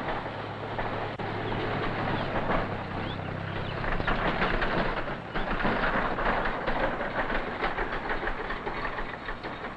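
Small farm tractor's engine running as it pulls a wooden wagon along a gravel driveway, the wagon clattering and rattling behind it. The engine's steady hum is plainest in the first few seconds; from about four seconds in the rattling grows louder.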